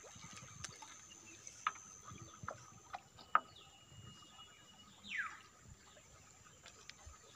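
Sparse bird calls from the riverside forest: a few short, sharp downward chirps, a brief held whistle, and one longer falling whistle about five seconds in, over a faint steady background.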